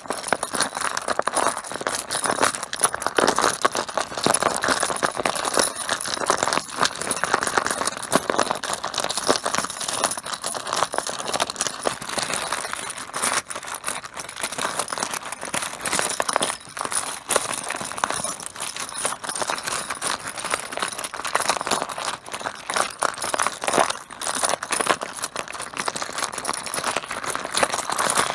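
Mahjong tiles clattering and clacking against each other and the table in a dense, continuous stream of small hard clicks.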